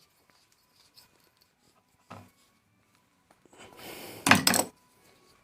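Scraping and rubbing on the small parts of a gas stove lighter being cleaned inside: a brief scrape about two seconds in, then a longer rasping rub that ends in a louder burst near the end.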